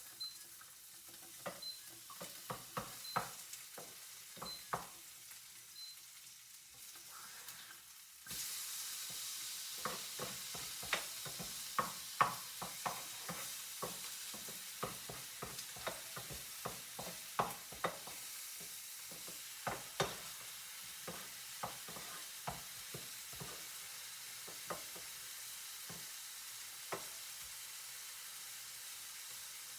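Food frying in a pan while a utensil stirs it, with frequent clicks and taps against the pan. The sizzle jumps up suddenly about eight seconds in and then stays steady.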